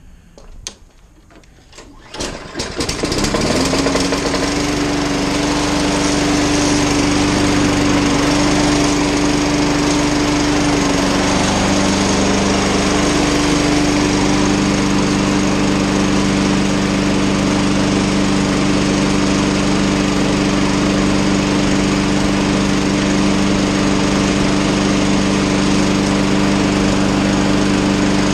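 Lawn-Boy four-stroke push mower engine: a few clatters in the first two seconds, then it catches, revs up quickly and runs steadily at speed. The engine now starts and runs after a no-start repair.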